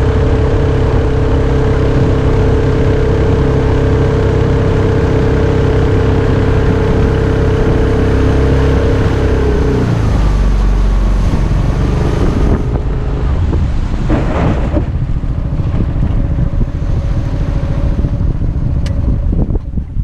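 Mokai jet boat's Subaru EX21 single-cylinder engine running steadily at speed. About halfway through it is throttled back, and the drone gives way to a lower, rougher run with water and wind noise.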